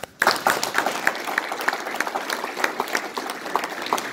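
An audience applauding: the clapping breaks out just after the start and keeps up steadily.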